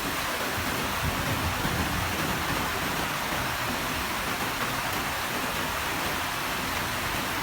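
Heavy rain pouring down as a steady, even hiss, with no thunder heard.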